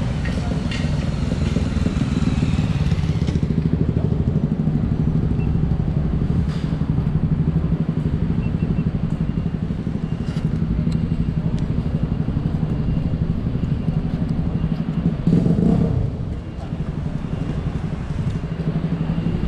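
Street traffic: a steady low engine hum from motor vehicles and motorcycles, briefly louder about fifteen seconds in.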